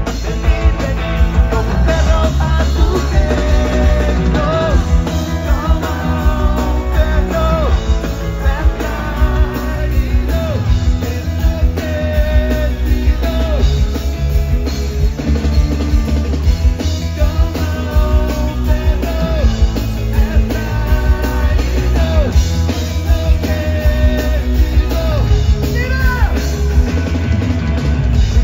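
Rock band playing live at concert volume: a sung vocal melody over electric guitar, bass guitar and a drum kit.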